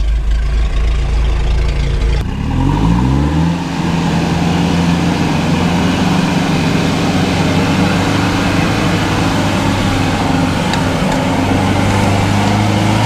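4x4 engines running. A deep, steady engine drone changes abruptly about two seconds in to an engine revving up in pitch. The engine then settles into a steady run.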